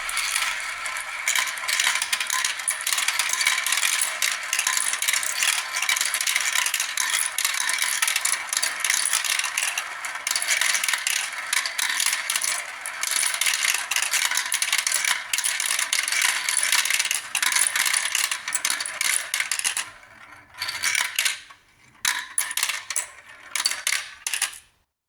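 Many marbles rolling and clattering down a marble run: a dense, steady rattle of small clicks. About twenty seconds in it thins to scattered clacks, then stops just before the end.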